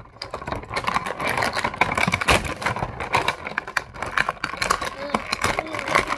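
Clear plastic toy packaging, a thin bag and a moulded blister tray, crinkling and crackling as hands squeeze and pull at it: a dense run of irregular sharp crackles.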